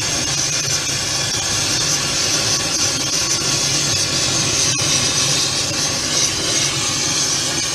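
Gas welding torch flame hissing steadily as it heats brass to melting.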